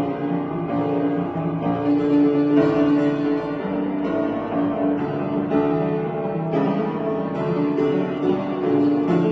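Upright piano being played, with sustained chords under a moving line of notes.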